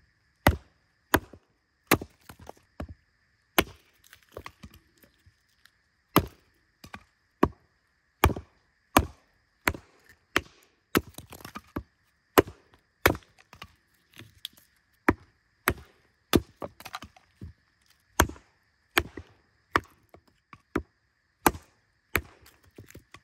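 A carved wooden mallet beating on the spine of a knife, batoning it down through short birch logs to split them: sharp knocks at a steady pace, a little under one a second, with a short pause about four seconds in.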